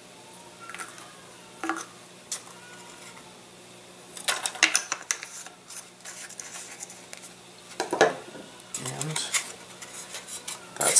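Thin balsa and plywood model-airplane parts being handled and pressed together: scattered light wooden clicks, taps and rubbing, busiest about four seconds in and again about eight seconds in.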